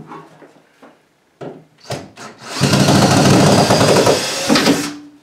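Cordless drill running for a little over two seconds, backing a screw out of a kitchen cabinet, after a couple of sharp knocks from handling the cabinet. It starts about halfway in and cuts off near the end.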